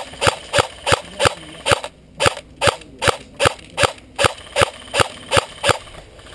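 An airsoft gun firing single shots in quick succession, about three a second, each a sharp crack. About fifteen shots in all, with a short pause near two seconds in; the firing stops shortly before the end.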